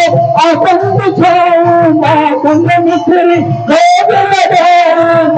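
Devotional song sung by a man with musical accompaniment: a held note underneath and repeated low beats.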